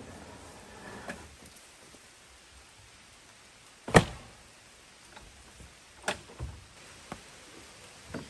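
A sharp knock about four seconds in, the loudest sound, then several softer knocks and thumps as someone climbs into the back of a Land Rover Defender, with some rustling at the start.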